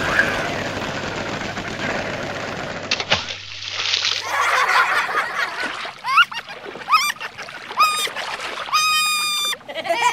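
Water splashing and sloshing, with a sharp click about three seconds in. Then come three short rising squeaks and a brief held horn-like toot near the end.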